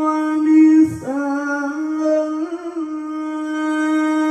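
A male qori's amplified Quran recitation: one long, drawn-out melismatic note at a steady pitch, with a short break about a second in and a small ornament near the middle, sounded through a sound system.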